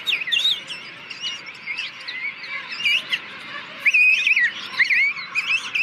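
King penguin chicks in a colony calling: many high, wavering whistles overlapping one another without a break, with the loudest calls about four to five seconds in.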